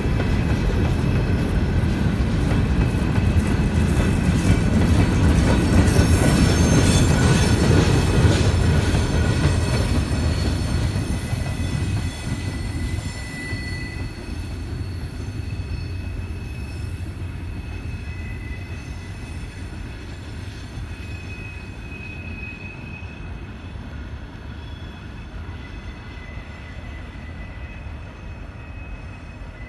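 Loaded Norfolk Southern woodchip gondola cars rolling past on a curve: a heavy rumble of steel wheels on rail with thin wheel squeals that come and go. The rumble is loudest about seven seconds in, then fades steadily as the end of the train rolls away.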